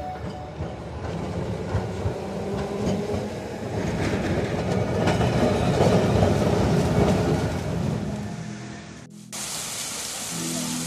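Tram passing on its street rails, rumbling and rattling, loudest in the middle as it goes by. About nine seconds in the sound cuts off abruptly and gives way to steady rushing fountain water.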